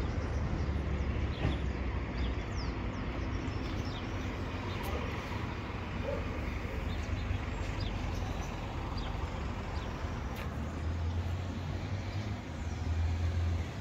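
Outdoor street ambience: a steady low rumble of road traffic, with short, high bird chirps now and then.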